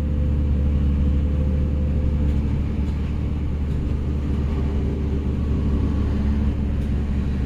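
Nissan Murano's 3.5-litre V6 engine idling steadily, a constant low hum with no change in speed.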